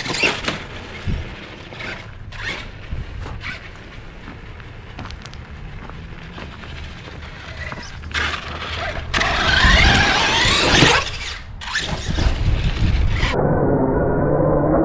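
Traxxas E-Maxx RC monster truck with a brushless VXL motor, driven hard on a 4S LiPo: bursts of electric motor and drivetrain whine that rise and fall with the throttle, with tyre noise on gravel and pavement. Near the end the sound turns duller and steadier.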